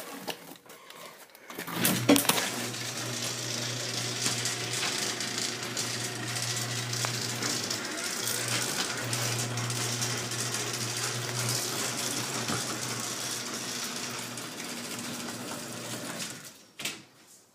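Craftsman half-horsepower garage door opener running: it starts abruptly about two seconds in, its motor hums steadily while the door travels for about fifteen seconds, then it stops near the end.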